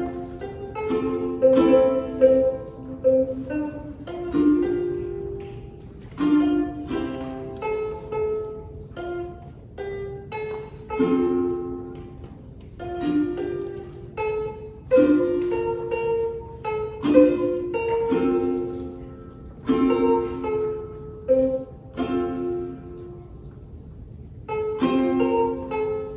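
Ukulele played as a solo tune of plucked notes and chords, each note ringing briefly and dying away.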